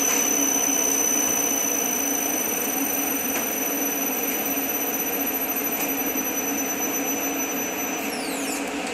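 Electric motor running on a Hyundai N700E variable-frequency inverter under test: a steady hum with several high-pitched whines over it. About eight seconds in, the high whines drop steeply in pitch and die away while the hum carries on.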